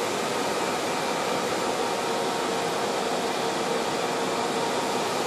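Steady rushing fan noise, with a faint steady hum underneath.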